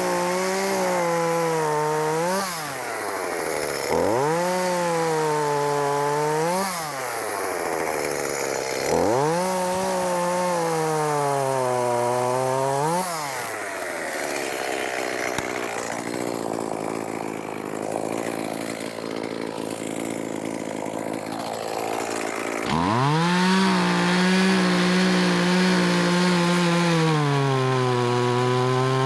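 Echo two-stroke chainsaw cutting oak branch wood: the engine revs to full throttle, its pitch sags as the chain bites in, then climbs again as it breaks through. Three short cuts come in a row, then a quieter, rougher stretch, then a longer cut near the end.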